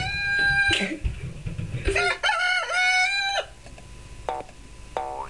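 Recorded rooster crowing, a farmyard sound effect played twice, each crow lasting over a second. Near the end come short springy boing effects with sliding pitch.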